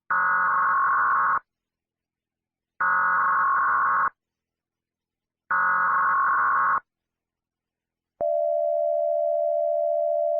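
Emergency Alert System header: three identical bursts of buzzy data tones, each about a second long and about a second and a half apart, then a steady alert tone starting about eight seconds in.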